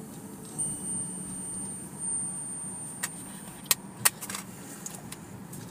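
Steady road and engine noise inside a car driving slowly, with three short sharp clicks or rattles about three to four seconds in.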